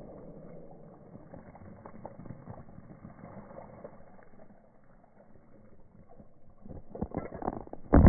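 A jet of garden water spraying and splashing over grass while a dog bites and gulps at the stream. It grows busier near the end with several loud close splashes and thumps, the loudest just before the end.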